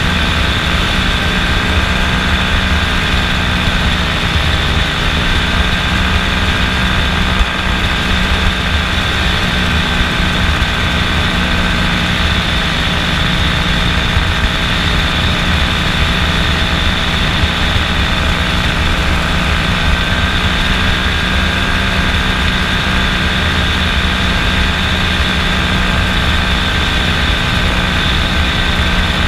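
Kolb FireFly ultralight's two-stroke engine and propeller, running in a steady drone. The pitch dips slightly about four seconds in and comes back up near twenty seconds.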